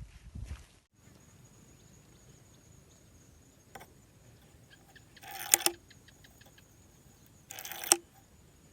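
Homemade alcohol-fuelled pistol firing twice, about two seconds apart. Each shot is a short rush ending in a sharp pop.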